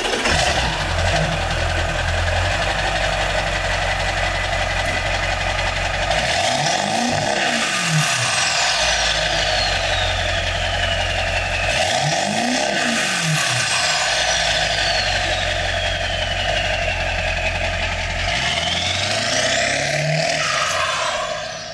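Ford 7.3L Power Stroke turbodiesel V8 through a 5-inch straight-pipe exhaust, idling with a deep thump and revved twice, each rev followed by a high whistle slowly falling in pitch. Near the end it revs up again as the truck pulls away.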